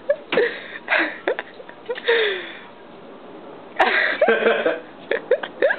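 Short bursts of a young woman's voice: giggles and wordless exclamations coming in quick spurts, with a sharp click about four seconds in.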